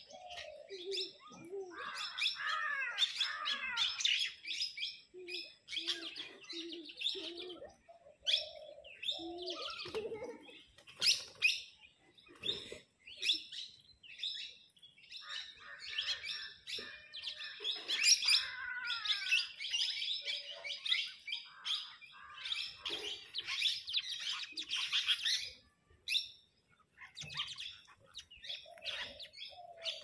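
Flock of plum-headed parakeets chirping and squawking as they squabble over food, in dense bursts with short lulls between. A few low, repeated notes come in now and then.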